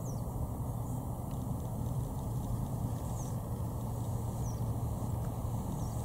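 Steady low rumble with faint, high, falling chirps from small birds several times over it.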